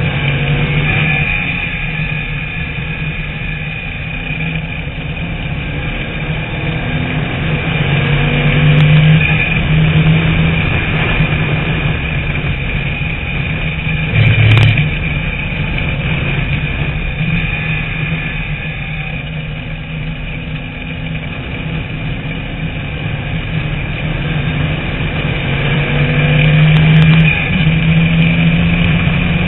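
Onboard engine sound of a TVR Tuscan Challenge race car at racing speed, the engine note swelling and easing as the revs rise and fall through the corners, loudest around 8 to 10 seconds in and again near the end. A brief sharp click sounds about halfway through.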